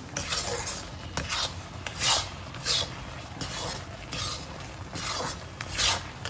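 Spatula scraping and stirring thick carrot-jaggery malt paste in an iron wok, with repeated rasping strokes roughly one or two a second. The paste has stopped spattering and is thickening towards its set, so it is stirred without a pause to keep it from sticking to the pan.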